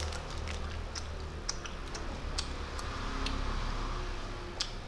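Clear plastic bags of jelly sweets being handled, crinkling with a scatter of irregular sharp clicks over a low steady hum.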